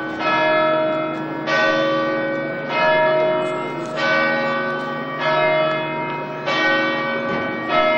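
Church bells ringing, a stroke about every second and a quarter, each stroke ringing on into the next; the pitch pattern shifts from stroke to stroke, as when several bells ring in turn.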